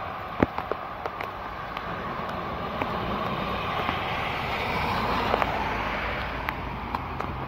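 Floodwater rushing and gurgling down a freshly unclogged street storm drain at the curb, a steady wash that swells a few seconds in and then eases, with a few sharp ticks scattered through it.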